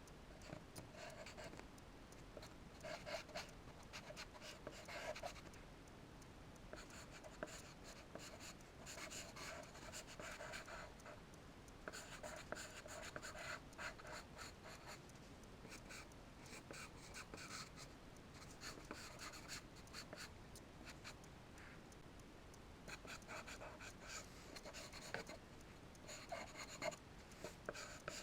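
Charcoal scratching across drawing paper in runs of quick, scratchy strokes, broken by short pauses.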